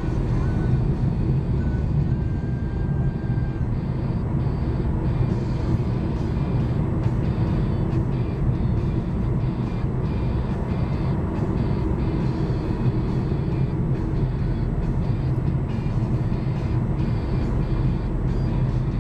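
Steady low engine and tyre noise inside the cabin of a car driving on the open road.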